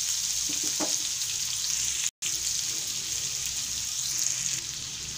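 Chopped onions frying in hot desi ghee in a pan with cumin, fennel and green chillies: a steady sizzle, breaking off for an instant about two seconds in.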